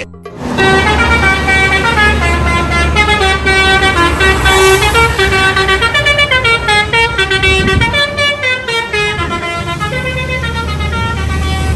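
Telolet bus horn, a multi-trumpet musical air horn, playing a stepping tune with several notes sounding together. A steady low engine hum runs underneath.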